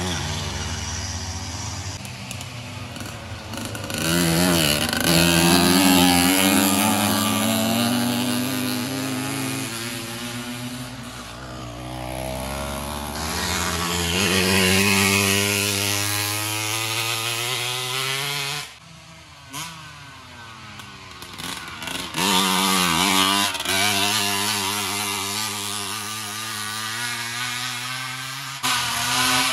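Racing motorized bicycles passing one after another, their small engines revving and changing pitch as each goes by. About two-thirds of the way through, the sound drops away briefly, then the next machines come past.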